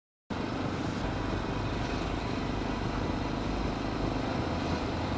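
Yamaha XT600 single-cylinder four-stroke motorcycle engine running at a steady cruise with road noise, picked up by an onboard camera. It starts abruptly after a moment of silence near the start.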